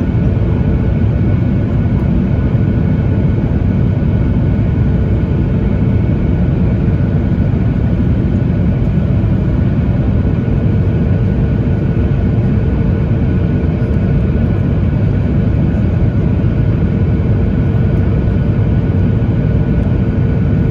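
Steady cabin drone of a Boeing 737-900ER airliner heard from inside the passenger cabin: a deep, even rumble of airflow and CFM56 engines with a faint steady hum above it, unchanging throughout.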